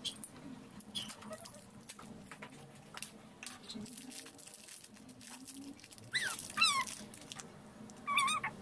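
Light clicks and rustles of plastic toy capsules and small wrapped doll pieces being handled. A high, wavering whine sounds about six seconds in and again briefly near the end, louder than the handling.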